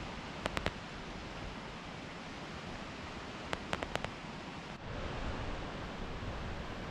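Steady outdoor rushing noise with two small clusters of sharp crackling clicks, one about half a second in and another between three and four seconds in. About five seconds in the noise changes abruptly and gets a little louder.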